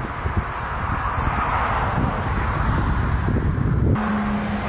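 Jet airliner engine noise as the aircraft flies past, a wide rushing sound with wind rumbling on the microphone. About four seconds in the sound cuts sharply to a different, steadier engine noise with a low hum.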